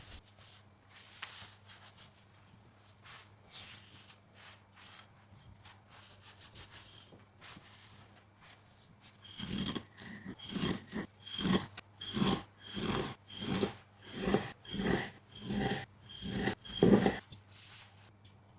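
A run of about fifteen short scratchy rubbing strokes, about two a second, starting some nine seconds in after faint rustling and stopping a second or so before the end.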